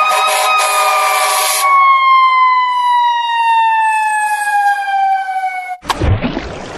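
A fire-engine siren wail, then a long whistle-like tone falling steadily in pitch. Near the end a toy fire truck hits water with a splash.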